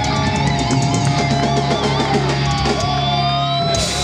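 Heavy metal band playing live: electric guitars holding long, wavering notes over drums, with a loud cymbal crash near the end.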